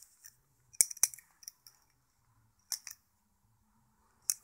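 Sharp metallic clicks from a Microtech Tachyon 2 balisong being handled, its handles and latch clacking: two close together about a second in, two more near three seconds, and one near the end.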